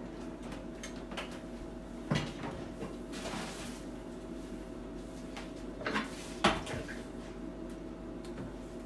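Dishes being washed by hand in a kitchen sink: a few sharp knocks and clatters of dishware, the loudest about six and a half seconds in, over a steady hum.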